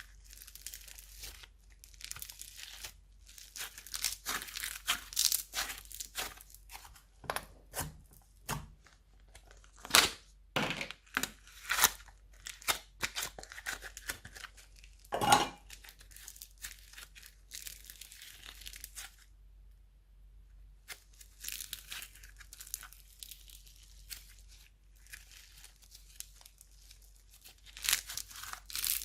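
Slime being kneaded, stretched and pressed by hand, giving irregular sticky crackles and pops, with a short pause about two-thirds of the way through.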